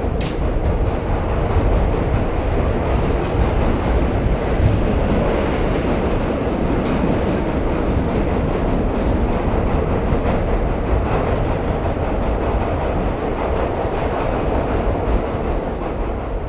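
Subway train running on the tracks through a station: a loud, steady noise of wheels on rails, with a few faint sharp clicks.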